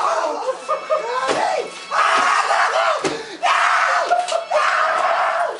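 People screaming and shrieking in high, wavering wails while being swatted, with a few sharp slaps cutting in around the middle.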